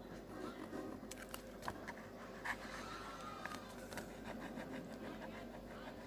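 Marker drawing on paper: faint scratching strokes of the tip across the sheet, with a few small taps.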